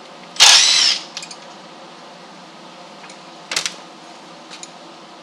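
Metal door hinges being handled: a short, loud metallic scrape and clatter, then one sharp click about three and a half seconds in.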